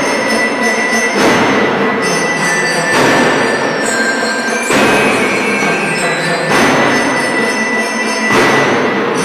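Elementary-school drum and lyre corps playing: a loud, dense wash of marching drums with bell lyres ringing thin notes over it.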